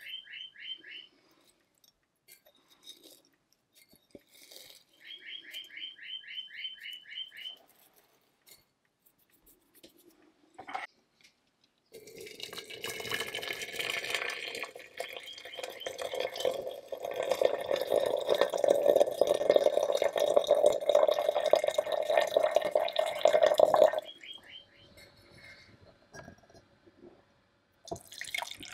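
A small bird gives two quick trills of rapid chirps in the first few seconds. About twelve seconds in, hot water is poured into a glass teapot for about twelve seconds, and the pouring rises slightly in pitch as the pot fills.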